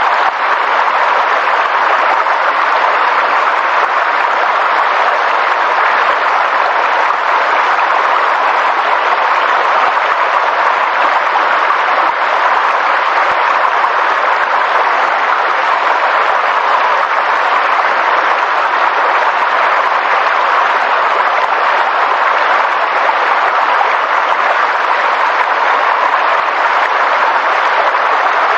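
Steady, even hiss of falling water, with no single drops, knocks or changes standing out.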